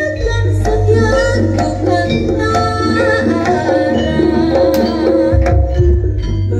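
Jaranan ensemble music: quick hand-drum (kendang) strokes over ringing pitched percussion tones and a deep bass, with a melody line that bends in pitch above.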